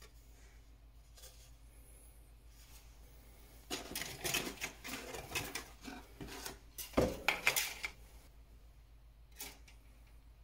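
Plastic model-kit parts trees clattering and clicking against each other and the cardboard box as they are handled and lifted out, starting a few seconds in, with a sharp knock about seven seconds in, then a faint click near the end.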